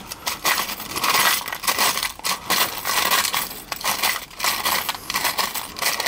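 Loose metal crimp terminals and stake-on connectors clinking and rattling in a plastic compartment organizer as a gloved hand sifts through them, a dense run of small irregular clicks.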